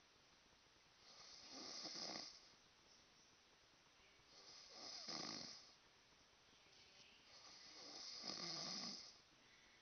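A man snoring in his sleep: three long snores, each lasting about a second and a half, spaced about three seconds apart.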